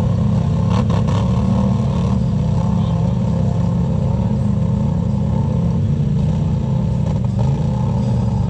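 Off-road vehicle engine idling steadily, close to the microphone.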